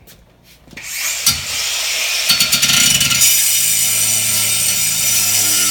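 Cordless angle grinder with a 46-grit diamond wheel starting up about a second in and cutting through wood: a harsh, loud grinding noise with a steady motor hum beneath it.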